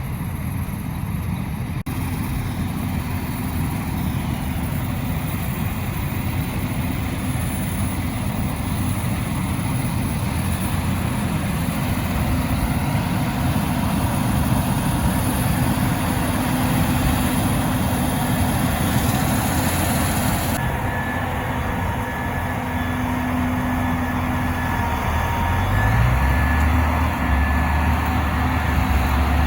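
Combine harvester's engine running steadily in the field, getting louder near the end as it comes closer.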